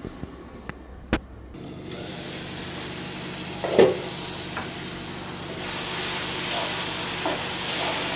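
Chopped tomatoes and onions frying in oil in a nonstick pan: a steady sizzle that grows louder in the second half, stirred with a spatula near the end. A couple of sharp clicks come near the start, and a knock about four seconds in.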